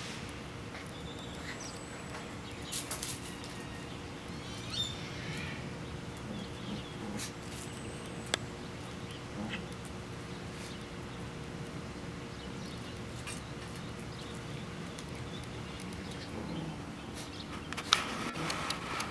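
Backyard ambience: a few faint, high bird chirps over a steady low hum, with scattered light clicks and taps and one sharper click near the end.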